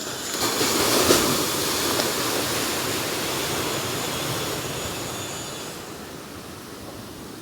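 A sea wave breaking on the beach and washing up the sand: a rush of surf that swells quickly about a second in, then fades slowly over several seconds.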